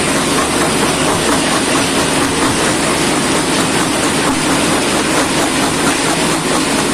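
Shanbao PE 250×400 jaw crusher running, a loud steady mechanical hum with a dense rattling clatter over it.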